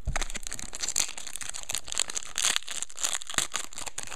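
Trading-card pack wrappers crinkling and cards being handled, an irregular run of short crackles and rustles.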